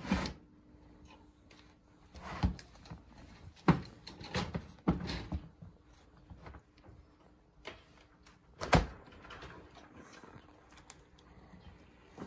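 Scattered knocks and rattles of a kitten playing with a teaser toy, bumping the plastic box it stands on and the wire cage around it, with two sharper knocks among them.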